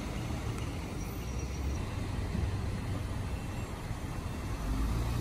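Steady low rumble of motor vehicles: engines running and road traffic, with no distinct events.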